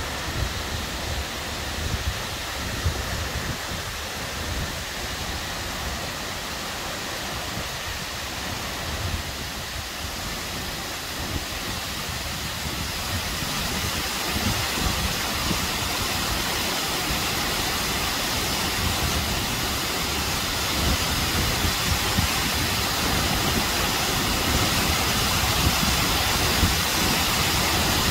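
The Acquafraggia waterfalls' steady rush of falling water and spray, with a low uneven rumble beneath. It grows louder and brighter over the second half.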